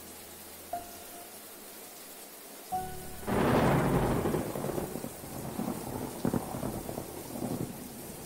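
Steady rain with a loud thunderclap about three seconds in that rumbles and crackles away over the next few seconds. Two short musical notes sound before the thunder.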